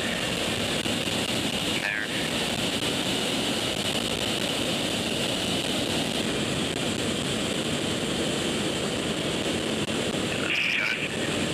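Steady rush of wind and jet engine noise in the cargo hold of a C-17 Globemaster III in flight with its paratroop door open.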